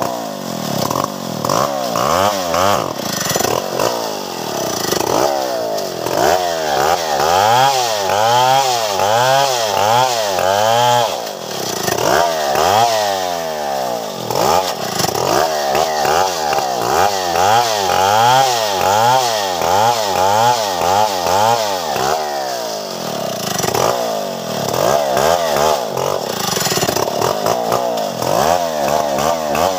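Stihl 070 two-stroke chainsaw cutting through a felled tree trunk. The engine pitch rises and falls over and over as the throttle is worked and the chain bites into the wood.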